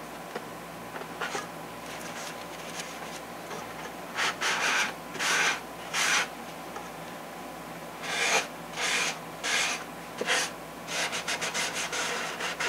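Cloth rubbing along the glued centre joint of a foam model-airplane wing, wiping off excess glue. A few light rubs come first, then two runs of about four strokes each, roughly two-thirds of a second apart, and a quicker run of short strokes near the end.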